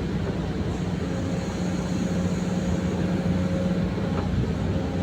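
Excavator's diesel engine running steadily under working load, a constant low drone with a faint higher tone above it.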